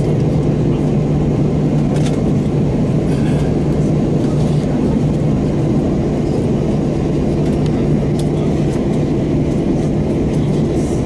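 Steady low drone heard inside the cabin of an Airbus A321 rolling slowly onto its gate, its CFM56-5B engines at idle, with a constant hum over the rumble.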